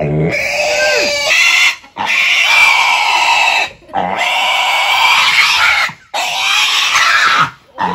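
A piglet screaming in long, loud squeals, four in a row with short breaths between, while it is held upside down and castrated with a blade.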